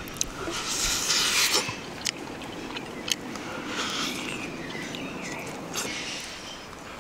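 Close-up eating sounds: chewing and crunching of tandoor-roasted quail, with a longer crunchy stretch about a second in and a few sharp clicks scattered through.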